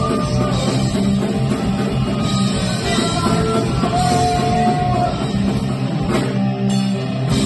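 A punk rock band playing live on electric guitar, bass guitar and drum kit.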